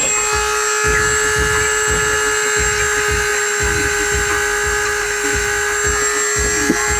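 Corded handheld rotary tool running at a steady high speed, its bit grinding on a hatchet or machete blade to sharpen it; a constant whine over an uneven low rumble.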